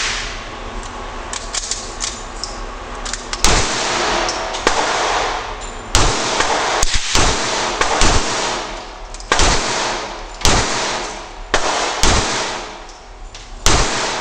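Gunfire on a shooting range, including .22 LR shots from a Marlin 81 rifle: about a dozen sharp reports at irregular spacing, some under a second apart, each trailing off in a short echo.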